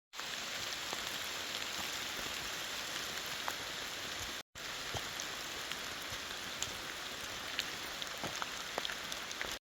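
Steady rain falling, with scattered single drops ticking close by. The sound cuts out briefly about halfway through.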